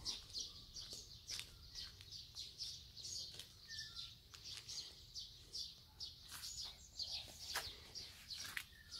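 Small birds chirping in the morning: a steady run of short, high notes that fall in pitch, a few each second, heard faintly.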